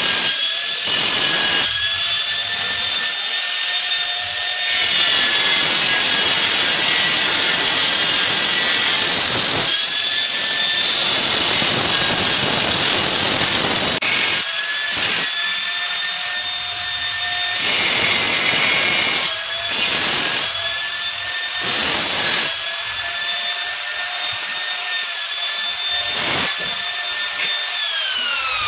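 Handheld angle grinder with a cutting disc running at a high steady whine and cutting into a ceramic staircase tile in repeated passes, the gritty grinding noise coming and going as the disc is pressed into the tile and lifted out, cutting an opening for an electrical outlet. Near the end the grinder is switched off and its whine falls away.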